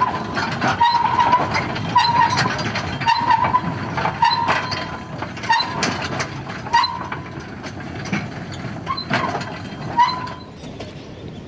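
A string of loaded narrow-gauge side-tipping skip wagons rolling on light rails by gravity, their wheels clattering over the track with many sharp clacks and a short squeal about once a second. The clatter eases off near the end.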